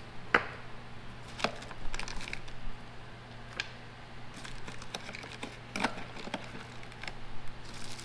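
Irregular clicks and clinks of small machined metal parts in plastic bags being handled and set down on a wooden table, the sharpest about half a second in, over a steady low hum.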